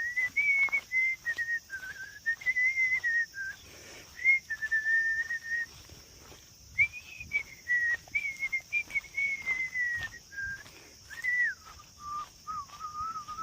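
A person whistling a wandering tune in long held phrases, dropping lower near the end, over irregular light knocks and steps.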